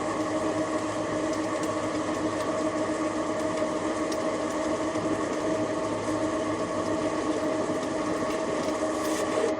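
TV-16 bench lathe running steadily: a constant machine hum from its motor and gearing, with no change in speed.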